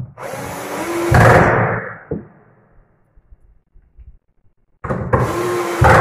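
Cordless drill driving screws to fix a corner-saver cabinet fitting, in two runs of about two seconds each, about three seconds apart. Each run has a steady motor note that gets louder toward its end.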